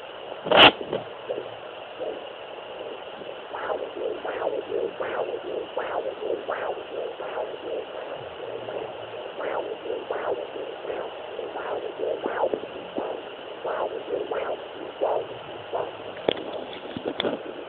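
Fetal doppler monitor's speaker giving a rhythmic whooshing pulse over a steady hiss, about one beat every 0.7 seconds. A loud crackle comes about half a second in, and short crackles come near the end.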